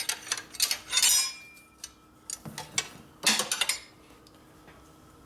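Metal tools and parts clinking and knocking in several quick clusters over the first four seconds. One knock, about a second in, leaves a brief metallic ring.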